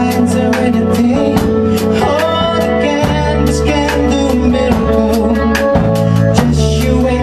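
A small rock band playing live: electric guitar, bass guitar and drum kit, with a man and a woman singing into microphones.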